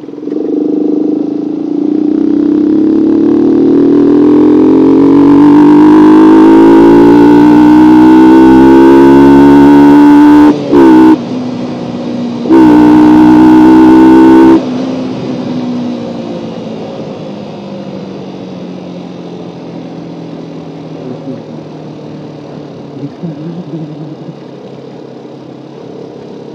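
Yamaha R15 V2's 150 cc single-cylinder engine accelerating hard, its note climbing steadily in pitch for about ten seconds. It drops away briefly, comes back loud and high, then eases off with the pitch falling as the throttle is closed.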